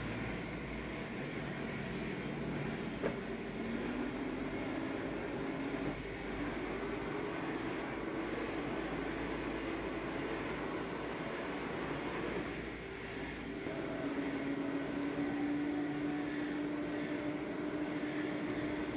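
Metal lathe running while turning a stainless steel pump shaft: a steady machine hum with a low tone that climbs slightly about four seconds in. The tone grows stronger and steadier from about fourteen seconds.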